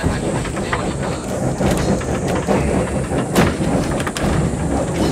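Old Kyoto city streetcar running along its track, heard from its open front platform: a steady low rumble with a rattle of clicks and knocks, one louder knock about three and a half seconds in.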